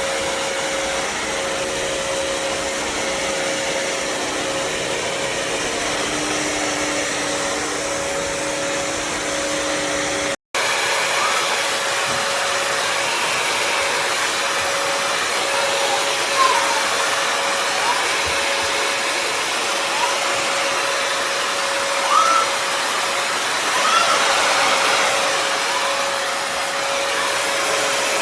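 Bissell CrossWave HydroSteam wet-dry vacuum running steadily, its motor noise carrying a constant whine. After a brief break about a third of the way in, it runs on with short rising squeaks now and then.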